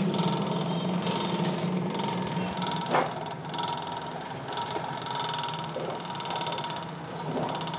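Forge air blower running with a steady hum, with scattered clinks and knocks of tools and coal at the forge, the sharpest about three seconds in.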